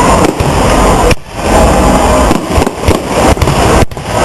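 Fireworks display going off: a dense, loud run of bangs and crackling. It drops out abruptly about a second in and again near the end.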